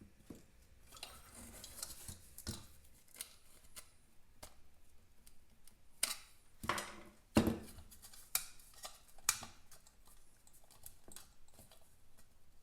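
Hand tools and small metal motorcycle parts being handled during disassembly: irregular clicks, clinks and light knocks, with a few sharper knocks about six to seven and a half seconds in.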